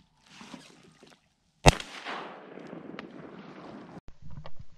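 A single 20-gauge shotgun shot about a second and a half in, its report dying away over about two seconds. A soft rustle comes before it.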